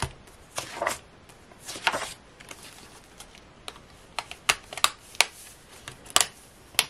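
Paper planner pages being flipped and handled, with a series of sharp clicks and taps as a plastic ruler bookmark is pressed and snapped onto the metal rings of the ring binder.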